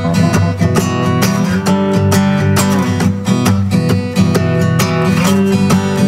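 Background music: an acoustic guitar strummed in a steady rhythm.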